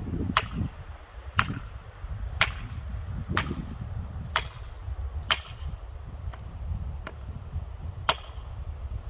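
Felling wedge being hammered into the back cut of a Douglas fir, sharp metallic strikes about once a second, nine blows with one lighter one near the end, to tip the tree against the wind. Wind rumbles on the microphone underneath.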